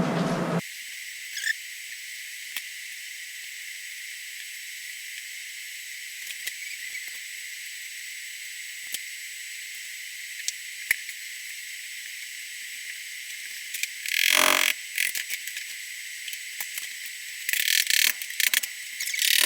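Scattered clicks and knocks of hand work on a toilet, with a louder scraping noise about fourteen seconds in and a cluster of scrapes and knocks near the end, over a steady thin hiss.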